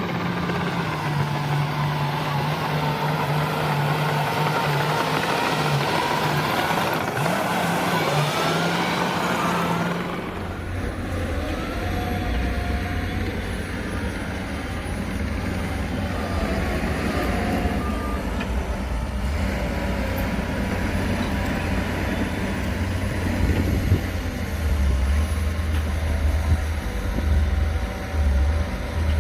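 Heavy diesel earthmoving machinery, a bulldozer working with a dump truck, running steadily under load. About ten seconds in, the engine hum drops to a lower pitch.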